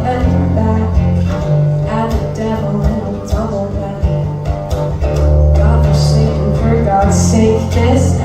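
Live performance of a country-blues song, with guitar to the fore over steady low bass notes.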